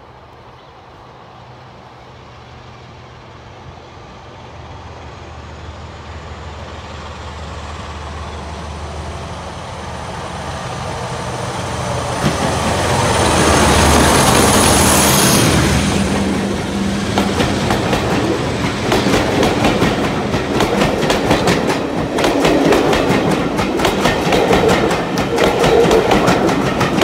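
A BR blue diesel locomotive approaches under power and passes close by. Its engine hum grows steadily louder up to about halfway through, with a high whistling tone that falls slightly in pitch as it goes past. The coaches then follow with a rapid, steady clickety-clack of wheels over the rail joints.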